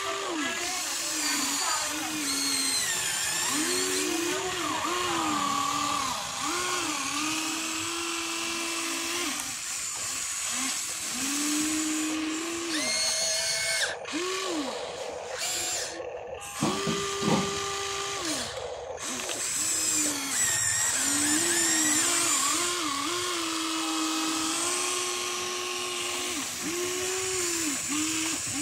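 Huina RC excavator's electric motors whining as the boom, arm and bucket dig and swing, the pitch rising, holding and dropping in short arcs with each stop and start of a movement.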